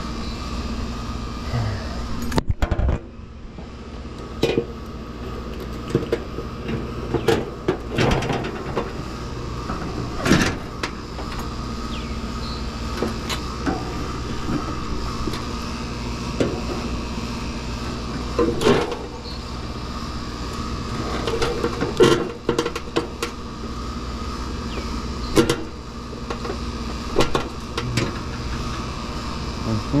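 Irregular metallic clanks, taps and knocks of hand tools and parts being handled while a condenser fan motor is mounted, over a steady background hum.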